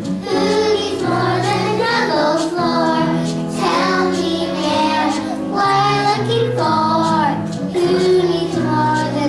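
A song: a voice singing a melody over steady backing music.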